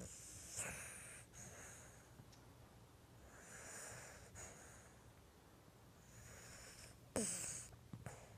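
Lhasa Apso dog snoring in its sleep: soft, wheezy breaths every two to three seconds, with a sudden, louder snort about seven seconds in.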